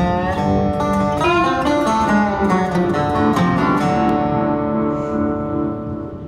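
Background music with some sliding, bending notes, fading out near the end.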